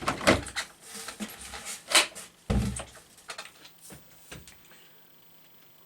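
Clicks and knocks from handling a Makita cordless coffee maker, its parts being pushed and worked by hand, with a sharp snap about two seconds in and a dull thump just after. The clicking dies away near the end.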